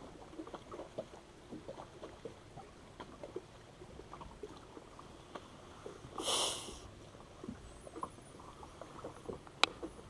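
Small water slaps and knocks against a small fishing boat's hull. About six seconds in comes a brief rushing noise, and near the end a single sharp click.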